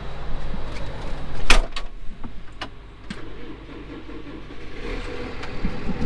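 Clicks and one loud bang about a second and a half in, as of a tractor cab door being shut, over a diesel engine running; the engine rumble grows again near the end.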